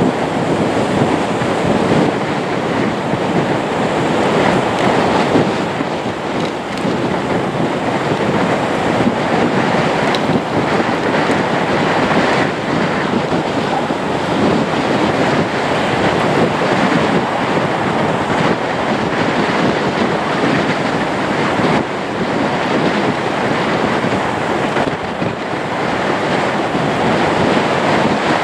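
Steady roar of a Lockheed Martin C-130J Hercules' four turboprop engines as the aircraft taxis, mixed with wind buffeting the microphone.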